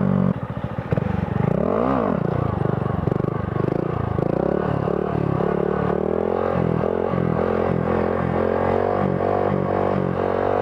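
Honda Grom's single-cylinder 125 cc engine revving. Its pitch rises and falls about two seconds in, then it runs on with the throttle pulsing about twice a second.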